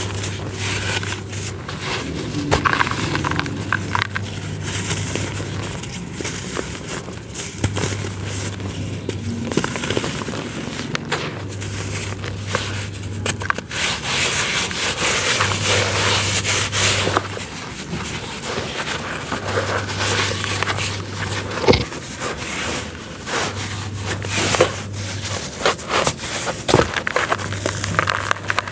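Dry, crumbly chunks being crushed and crumbled by hand: dense, irregular crackling and scraping with scattered sharp snaps, one of the loudest about two-thirds of the way in. Under it a low hum comes and goes in regular pulses of about two seconds.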